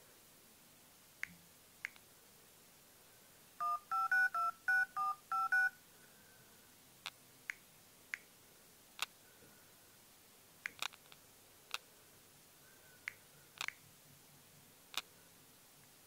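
Smartphone dialer keypad tones: a quick run of about eight two-tone beeps about four seconds in, followed by scattered single sharp clicks as the touchscreen is tapped.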